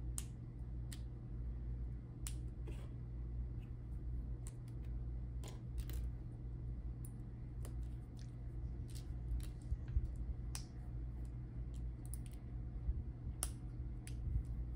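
Small LEGO bricks being handled and pressed together: irregular sharp clicks and taps, a few every couple of seconds, over a steady low hum.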